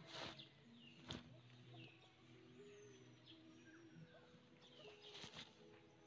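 Faint bird chirps: short falling calls that come every second or so, with a few soft knocks between them.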